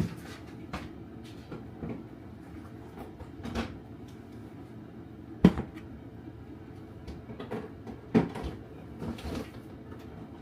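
Kitchen handling sounds: scattered knocks and clunks of containers and a cupboard or fridge door, with sharp knocks at the start, about five and a half seconds in and about eight seconds in, over a steady low hum.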